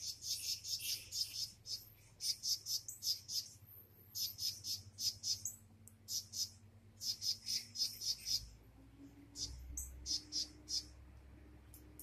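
Rapid high-pitched animal chirps in runs of seven or eight, a run about every two seconds, over a faint low hum.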